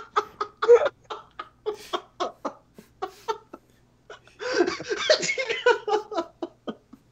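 Several people laughing hard together in short, breathy bursts, with a brief lull just past halfway and then a louder round of laughter.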